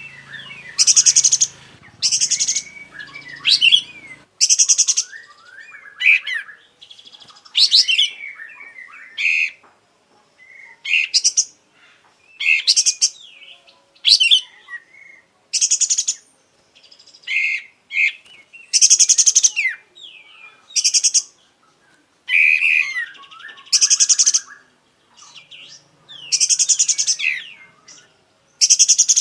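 Kapas tembak, a bulbul kept as a songbird, singing in full 'gacor' form: short, loud, high phrases, some of them fast rattling trills, come about once a second with brief pauses between. It is running through its repertoire of varied phrases.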